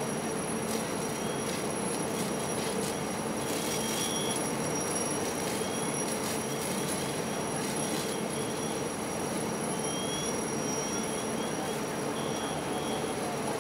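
Fire apparatus pumps and engines running at a house fire: a steady mechanical noise with a constant hum and a thin high whine. Scattered faint crackles and brief high squeaks come through over it.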